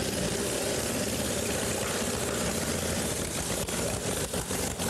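1911 Model T Ford engine, newly restarted, running loudly on a workshop stand, with a few brief stumbles in the last second or so. It is a worn engine, smoking heavily, which the restorers mean to rebore.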